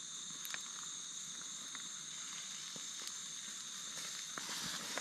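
A payara fish sizzling as it roasts over a wood fire, with scattered crackles and pops that come more often near the end, over a steady high chorus of night insects.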